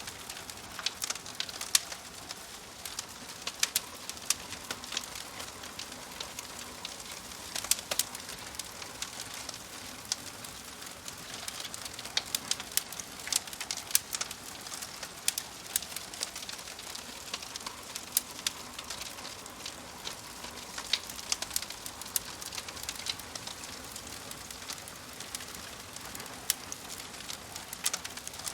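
Wood fire crackling: a steady soft hiss with frequent sharp, irregular pops and snaps.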